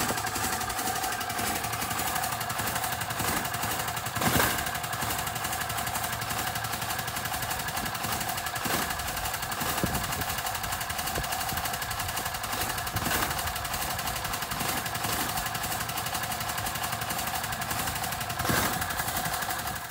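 Utility vehicle's engine idling steadily, with a few scrapes and thuds of shovels heaving dirt into its plastic cargo bed, the loudest about four seconds in and near the end.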